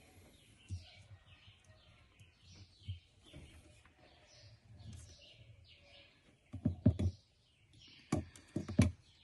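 Birds chirping over and over in the background, with two loud clusters of sharp clicks and knocks, about seven seconds in and near the end, from parts being handled.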